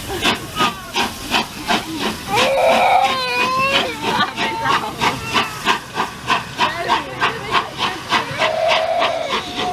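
Steam locomotive 60163 Tornado, a three-cylinder Peppercorn A1 Pacific, working with steady exhaust beats, about three to four chuffs a second. Brief whistle-like tones sound over the beats about two and a half seconds in and again near the end.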